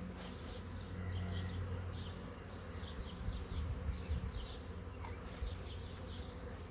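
Honey bee swarm buzzing: a steady low drone of many bees in the air as the swarm leaves the branch and flies into the nuc box. Short high chirps sound faintly over it.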